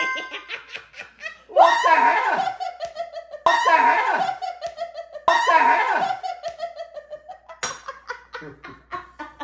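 A woman laughing hard and shrieking with glee: short quick laughs at first, then three long loud bursts, each starting suddenly, with the pitch sliding down through each.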